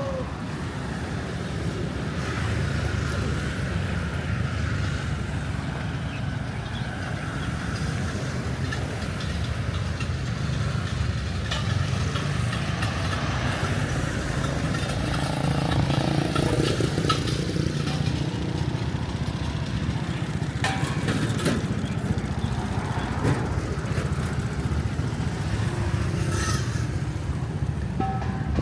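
Steady low rumble of motor-vehicle engines, with faint voices and a few sharp clicks.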